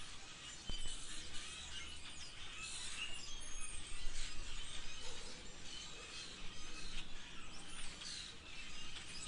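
Green budgerigar chirping and chattering: many short high chirps and quick whistled sweeps, scattered and irregular, over faint low background noise.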